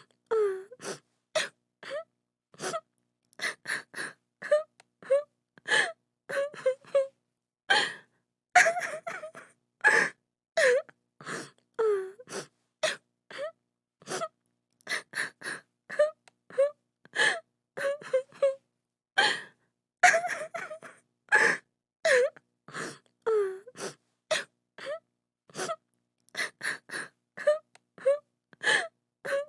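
A woman crying and sobbing in short, broken bursts of gasping breaths and wails, one or two a second with brief gaps between them.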